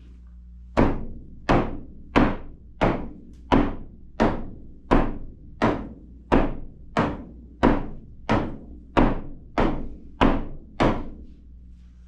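22-inch Inuit frame drum with a fabric head being struck in a steady beat, about sixteen strokes at roughly one and a half a second, each note dying away quickly. Its head is still a little slack and needs more tightening for a good sound.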